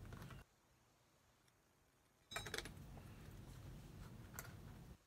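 Cotton fabric being handled and small plastic sewing clips clicking onto the folded edge: a few sharp clicks about halfway through and a single click near the end, all faint.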